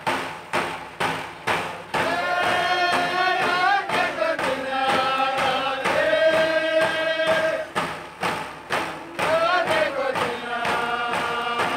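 Round hand drums beating a steady pulse about twice a second, with a group of men singing a Dene drum song over them from about two seconds in. The singing drops out for a moment past the middle while the drumming carries on, then resumes.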